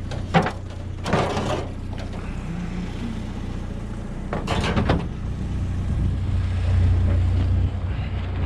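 A GMC Sonoma pickup's engine running at idle, with a few short loud bangs in the first five seconds. Near the end the engine's low rumble grows louder.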